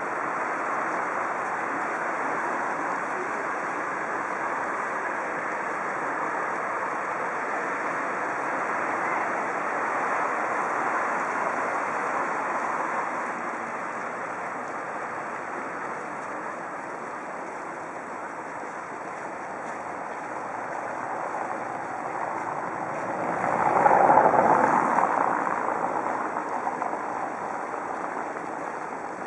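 Steady outdoor rush of distant road traffic. About three-quarters of the way through it swells into the hiss of a single vehicle passing close, which then fades away.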